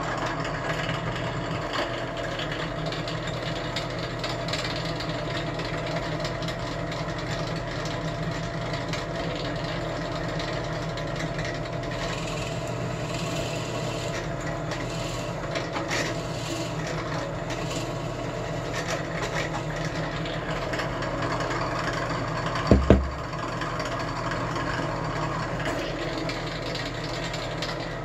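Drill press motor running steadily while the bit is fed down into a cherry board, with the scratchy noise of the bit cutting wood. Two sharp knocks in quick succession come late on.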